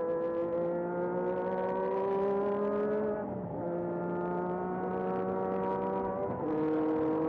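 Renault RE40 Formula 1 car's 1.5-litre turbocharged V6, heard onboard, accelerating along a straight. The engine note climbs steadily, then drops as the car shifts up about three seconds in and again about six seconds in.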